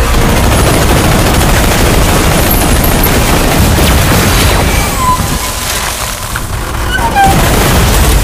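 Film action sound design: dense rapid gunfire and explosion booms, mixed with music. It eases off a little past the middle and swells again near the end.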